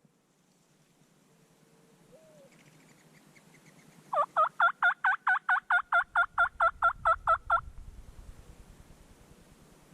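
Turkey yelping: a loud series of about seventeen evenly spaced yelps, roughly five a second, lasting about three and a half seconds, with a softer single call a couple of seconds before it.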